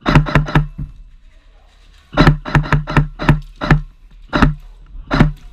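Airsoft electric gun (AEG) firing single shots in irregular runs: four quick shots at the start, a run of about eight a couple of seconds in, then two spaced shots. Each is a sharp crack with a short gearbox buzz.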